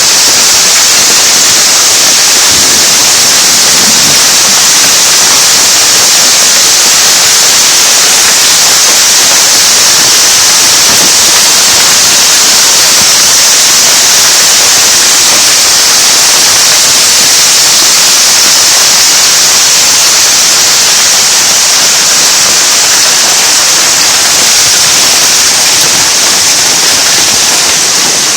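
Hail pelting down in a storm: a loud, steady, dense hiss with no let-up, strongest in the high register.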